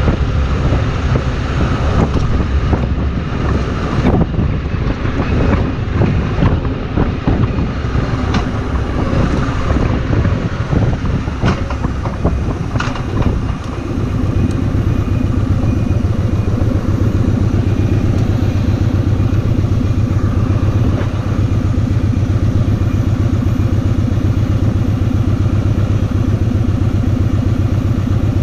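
Kawasaki Vulcan 2000 V-twin motorcycle engine running, uneven at first with a few sharp knocks. About halfway through it settles into a steady, even low beat.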